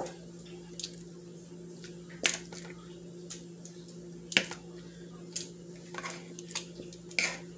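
Metal kitchen tongs clicking against a bowl and on raw chicken pieces as they are picked up and moved, with soft wet squelches. The clicks come singly, about one a second, the sharpest ones about two and four and a half seconds in.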